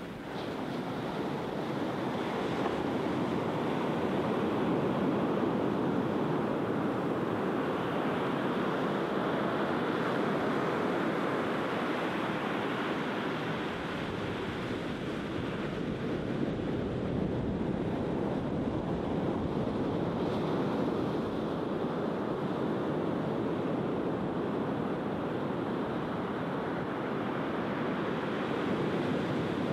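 Sea surf breaking and washing up a sandy beach: a steady rushing wash that swells over the first couple of seconds.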